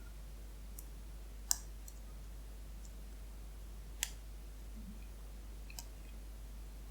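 A steel lock pick and tension wrench working the pin-tumbler core of an iron-body padlock, giving a few faint, sharp metal clicks. Two clicks are louder, one about a second and a half in and another about four seconds in.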